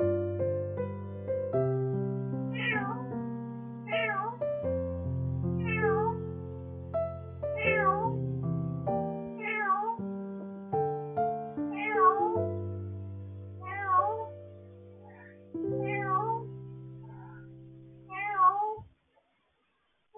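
A cat meowing over and over, one call roughly every one and a half to two seconds, each call dipping and then rising in pitch. Soft piano background music plays underneath and stops shortly before the end.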